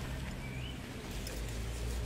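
Low steady outdoor rumble, with one short, high, rising bird chirp about half a second in.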